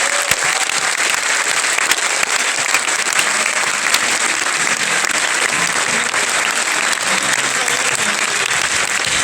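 Large audience applauding steadily and loudly.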